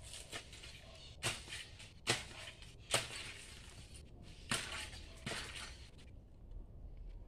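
Sharp cracks and snaps from a coconut palm's fruit bunch as green coconuts are worked loose. About six irregular cracks, the loudest about three seconds in, then quieter near the end.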